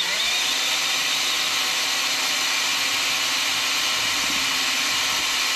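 Handheld electric drill running steadily under load as it drills into a metal lathe part, its motor winding up at the start. The bit is not cutting well, and a sharper bit is wanted.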